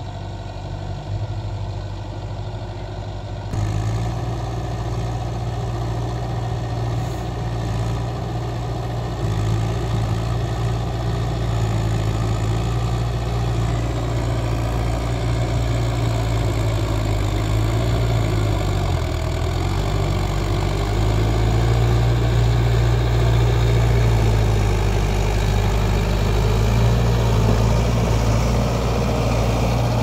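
Diesel tractor engine running steadily as it pulls a mounted disc plough through wet soil, with a strong low hum. It gets louder a few seconds in and again in the second half.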